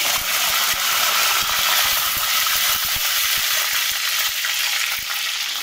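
Hot sesame oil in a clay pot (mann chatti) sizzling steadily and loudly as curry leaves, green chilli, fenugreek and fennel seeds fry in it for a South Indian tempering. The sizzle eases slightly near the end.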